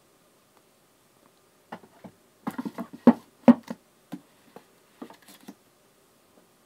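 A pad of scrapbook paper being slid into a wooden shelf cubby: a run of light taps and knocks, with two sharp loud knocks close together about halfway through.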